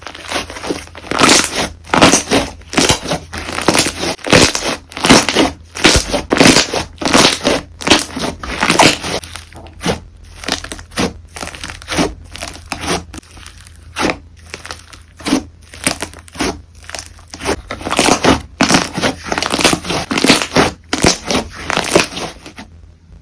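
Slime worked by hand, squeezed and pressed over and over with crackly, crinkly pops, about two squeezes a second. The sound stops shortly before the end.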